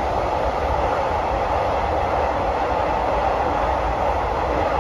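Passenger train running, heard from on board: a steady rumble with an even rushing noise.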